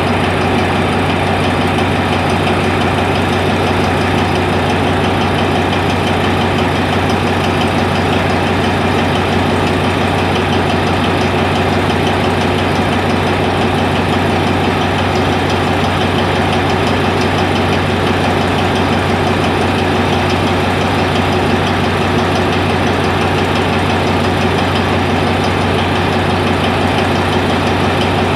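Diesel locomotive engine idling, a loud, unchanging low hum.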